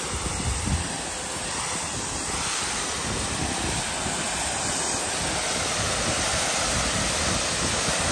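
Greenworks Pro 3000 psi electric pressure washer's high-pressure water jet spraying onto an asphalt driveway, a steady hiss as it blasts mud and dirt off the surface, a little louder after about two seconds.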